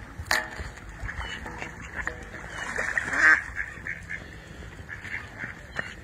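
Ducks and geese calling on a pond: a honking call just after the start, then a rougher, noisier call that is the loudest sound, about halfway through, with short calls scattered around them.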